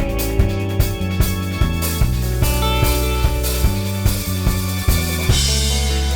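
Background music: a band track with a drum kit keeping a steady beat of about two and a half hits a second over bass and guitar. About five seconds in the drumming stops on a cymbal crash and a held chord.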